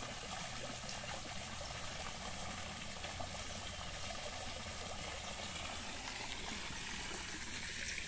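Water running steadily out of a standing pipe spout and splashing into a small pond.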